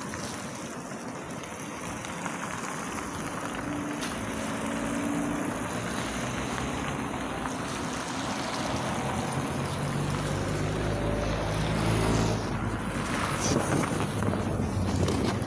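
Street traffic noise with wind buffeting the microphone, then a Volgabus-5270.G2 gas-powered city bus approaching and pulling up. Its engine hum grows louder from about two-thirds through, peaking shortly before the bus stops.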